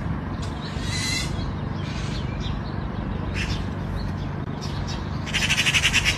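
A bird's squawking calls, each a rapid train of pulses: a few short calls in the first half, then a louder, longer burst near the end, over a steady low rumble.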